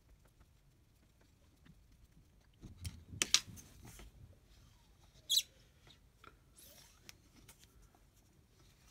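Hand-built plastisol injector being handled on a workbench: a few sharp clicks and knocks of its metal parts and tools about three seconds in and again past five seconds, with scuffs and a faint falling squeak.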